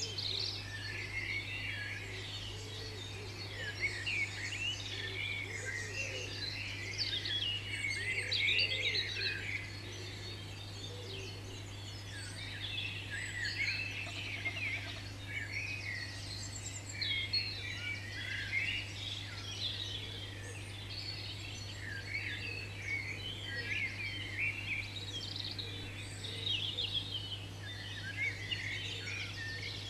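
Many small birds chirping and singing at once: a dense, unbroken chorus of short high chirps and trills, over a steady low hum.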